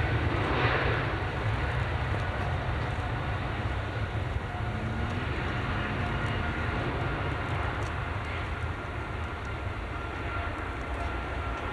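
Boeing 777 jet engines running, a steady broad rumble with a faint whine. It is loudest in the first couple of seconds and eases off slightly after that.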